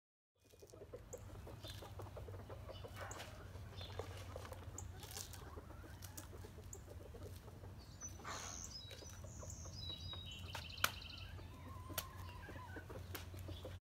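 Backyard hens clucking softly as they peck at scattered food, over a low steady rumble. A quick high chirping comes in around the middle, and two sharp clicks sound near the end.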